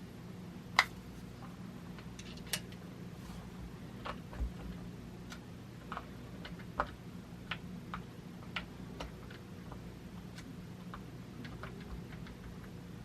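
Sharp, irregular metallic clicks from a preset torque driver as screws are tightened down to 20, the loudest about a second in, over a steady low hum.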